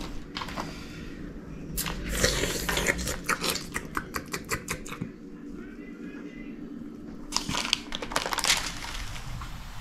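Aluminium foil crinkling and rustling in two bouts of quick crackles, the first about two seconds in and the second near eight seconds, over a low steady hum.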